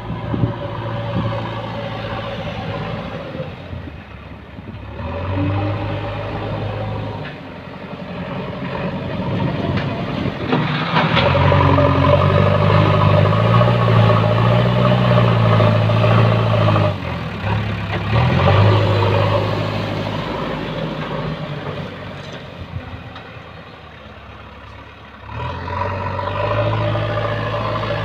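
JCB backhoe loader's diesel engine working. Its note rises and gets louder for several seconds as the front bucket is driven into a soil pile, then falls back. It quietens for a few seconds and picks up again near the end.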